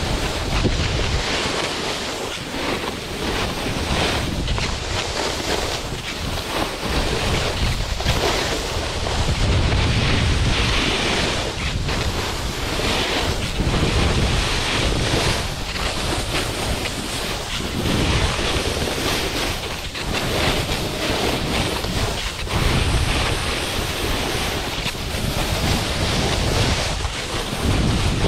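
Wind rushing over the microphone together with a snowboard scraping and carving over snow, swelling and easing every couple of seconds with the turns.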